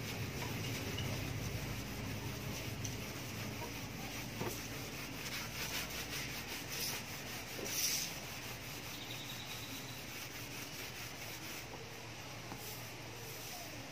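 Damp cloth rubbing and wiping over the plastic side panel of a Honda Activa scooter, buffing toothpaste over fine scratches, with a slightly louder stroke about eight seconds in.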